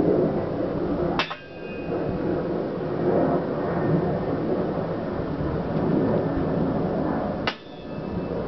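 Two airsoft gun shots about six seconds apart, each a sharp snap with a short ringing tone after it, over a steady low background rumble.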